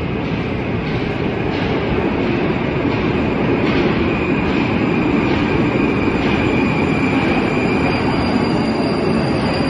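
A Moskva-2024 (81-775.2/776.2/777.2) metro train running into the station and pulling alongside the platform, with a loud steady rumble. A thin high squeal sounds from about four to eight seconds in.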